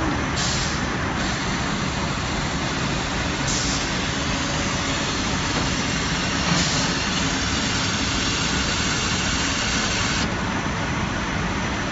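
Automatic roll-cutting machine running, its circular blade head working over rolls of striped tape, with steady mechanical noise. Short high hisses come every three seconds or so, and a longer one near the end.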